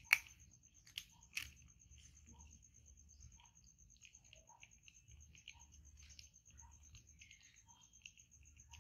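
Young macaques chewing and biting into fruit close to the microphone: soft wet crackles and smacks, with three sharp cracks in the first second and a half. A faint, steady, high pulsing tone runs underneath.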